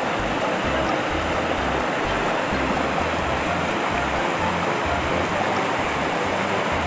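Shallow rocky river flowing over rapids and a small weir: a steady, even rush of water.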